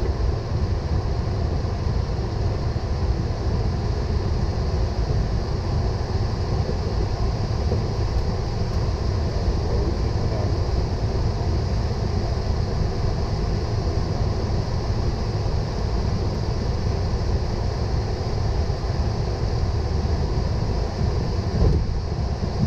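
Steady flight-deck noise of a Boeing 777 taxiing: a constant low rumble with airy hiss above it, and a single thump near the end.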